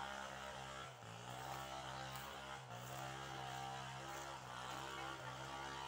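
A faint, steady small-engine drone, its pitch wavering slightly every second or two.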